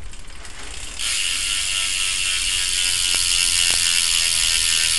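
BMX rear hub freewheeling as the back wheel spins, its pawls clicking in a rapid ratchet. About a second in it gets much louder and runs on as a fast, even buzz of clicks.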